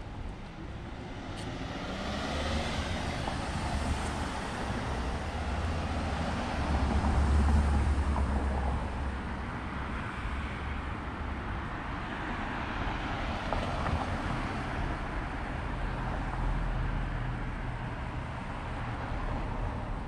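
Road traffic: cars passing on a street, the loudest going by about seven or eight seconds in, and another swelling near the end.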